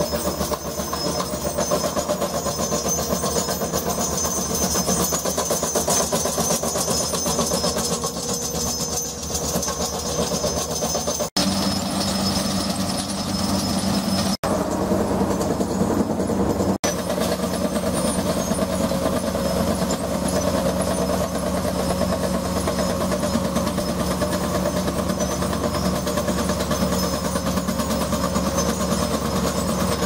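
Föckersperger tracked vibratory cable plow running under load, its engine and vibrating plow blade making a steady, fast rattle as it plows duct into the ground. The sound drops out briefly about 11 and 14 seconds in.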